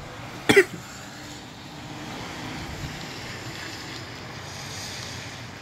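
Steady noise of wind and light rain, swelling a little a couple of seconds in, with a loud sharp thump about half a second in.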